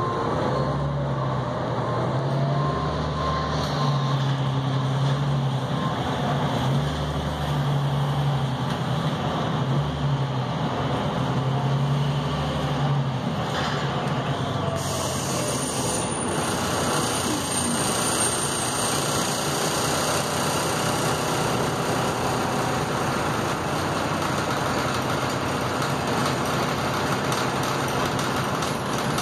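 Articulated Neoplan AN460A diesel bus heard from inside the passenger cabin while riding: a low engine hum that swells and fades several times over the first half, over steady road and cabin noise that carries on to the end.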